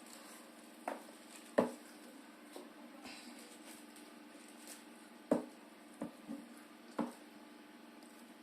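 Forks clinking and tapping against plates while eating: about six sharp clinks scattered through, the loudest about one and a half seconds and five seconds in, over a faint steady hum.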